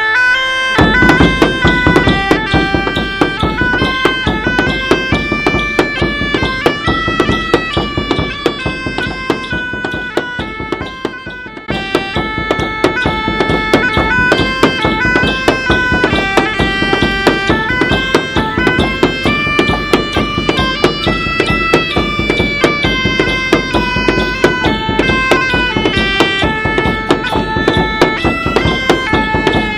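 Medieval-style folk music: bagpipes playing a lively melody over their drone, with a steady drum beat. The music dips briefly about eleven seconds in, then goes on.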